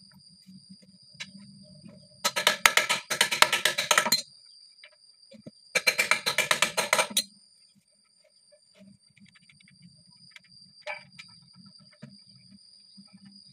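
Electric drill run in two short bursts, about two seconds and then a second and a half, each a fast, even rattling pulse.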